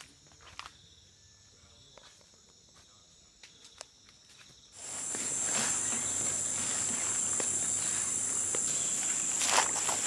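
Quiet rainforest insect chorus with faint footsteps on a dirt trail. About halfway through, a much louder, steady, high-pitched insect drone comes in over a background hiss.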